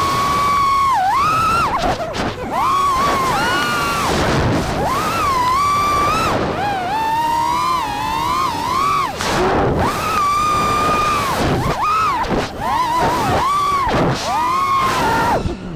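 FPV freestyle quadcopter's motors whining, recorded by the camera on board. The pitch swoops up and down sharply and dips many times as the throttle is punched and chopped through the manoeuvres.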